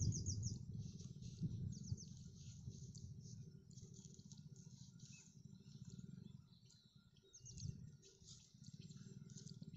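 Small birds chirping in short quick series, several times, over a low steady rumble.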